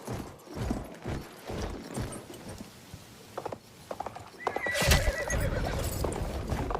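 Horse hooves clip-clopping in an even rhythm, then a horse whinnying about four and a half seconds in, with a sharp loud hit. After that the hoofbeats come faster and run together into a steady rumble.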